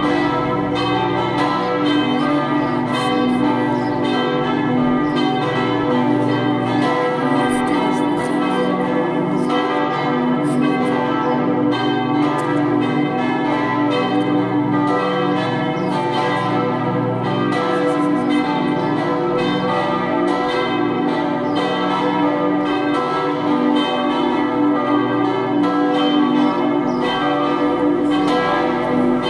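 Peal of four swinging bronze church bells, tuned B, D, E and G, ringing together in a continuous run of overlapping strokes.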